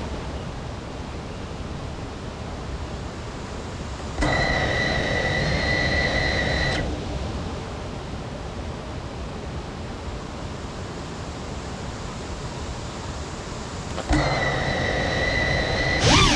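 FPV quadcopter's electric motors spinning at a steady idle with a high whine, twice: for about two and a half seconds starting around four seconds in, then again near the end, where the pitch begins to climb as the throttle comes up. Between the two, a steady hiss.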